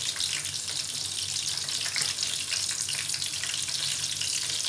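Flour-coated chicken pieces frying in hot oil in a pan: a steady, dense sizzle full of fine crackles.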